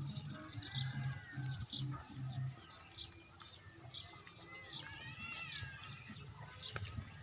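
Birds chirping: repeated short high chirps and arching whistled calls, with a low pulsing hum under them in the first couple of seconds.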